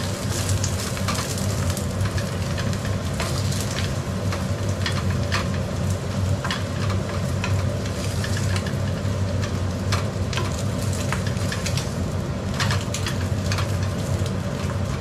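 Maida paratha sizzling as it fries in oil in a frying pan, a steady hiss over a steady low hum, with scattered light taps and scrapes of a wooden spatula against the pan.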